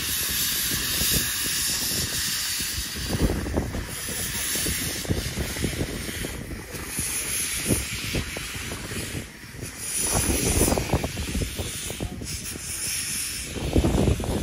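Small saddle-tank steam locomotive moving off with its cylinder drain cocks open: a steady hiss of escaping steam, with uneven low chuffs from the exhaust beneath it.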